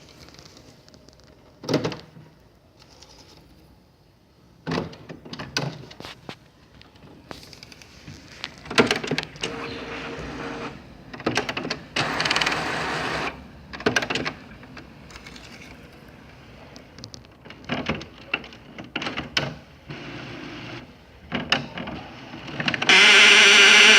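HP Officejet 7110 inkjet printer's mechanism clicking and knocking irregularly, with short bursts of motor whirring, then a loud steady buzz starting about a second before the end. It is the strange noise of a printer that has a fault and prints nothing.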